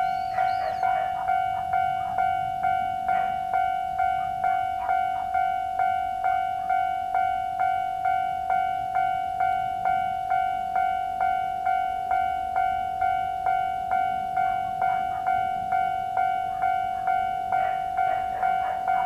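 Japanese railway level-crossing alarm ringing its standard electronic bell tone: one ringing note struck over and over at an even pace, about two strokes a second, each stroke fading into the next.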